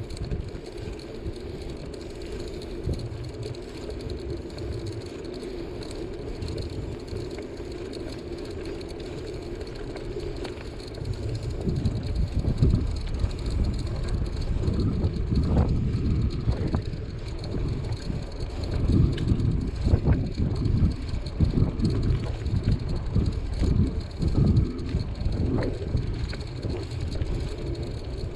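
Bicycle riding along a paved road: steady wind and road noise, which turns into louder, uneven low rumbling about halfway through.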